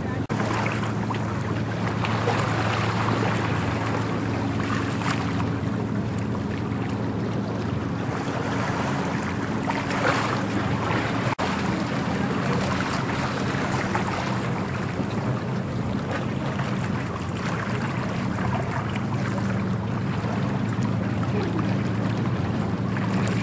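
Wind buffeting the microphone over the steady low hum of a tugboat's diesel engine working a barge.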